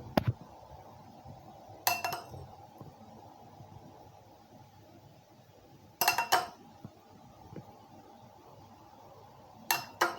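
A metal spoon clinking against glass in short bursts, four times a few seconds apart.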